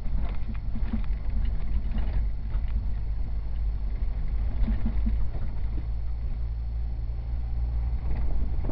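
A Jeep's engine running steadily at low speed, heard from inside the cab as it drives over a rocky dirt track, with scattered knocks and rattles throughout.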